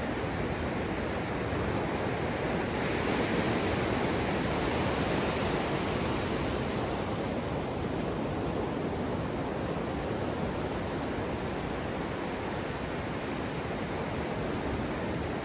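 Ocean surf breaking and washing up the sand close to the microphone: a steady rush of foaming water that swells about three seconds in, then slowly eases.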